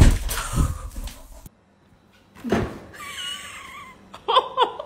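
A cat meowing, with a few short calls near the end. Before that comes a burst of thumps and noise that cuts off suddenly about a second and a half in.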